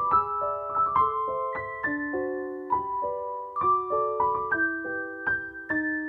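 Background piano music: single notes and chords struck about twice a second, each ringing on and fading.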